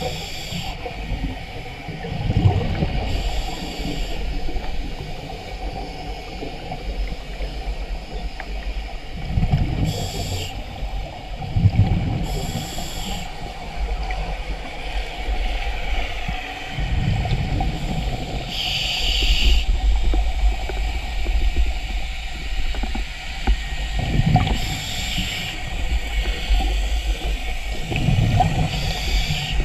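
Scuba diver breathing through a regulator underwater: a short hiss on each inhale and a low bubbling rumble of exhaled bubbles, repeating over several breaths. A steady low rumble of water on the waterproof camera housing runs underneath.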